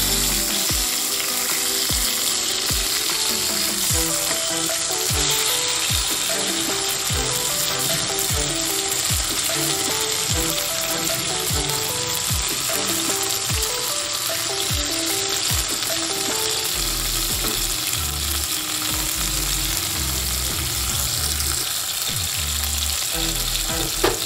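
Katla fish steaks sizzling steadily as they shallow-fry in hot oil in a steel kadai, with a wooden spatula turning them over in the pan.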